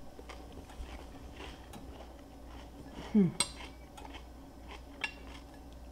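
Faint, scattered clicks and clinks of a metal fork against a china plate, with a brief falling hum from a voice about three seconds in.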